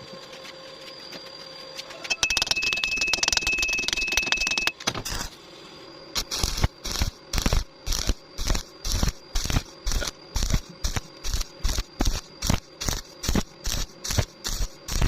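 Welding arc on thin sheet metal: a continuous burst of crackling arc lasting about two and a half seconds, then, from about six seconds in, a long run of short stitch-welding bursts, roughly two a second, to keep from burning through the thin metal.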